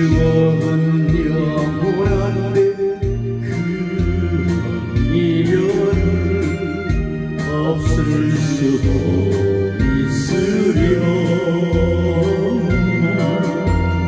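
Backing-track music in B-flat for singing or saxophone practice: band accompaniment with a steady bass pulse and chords under a moving melody line.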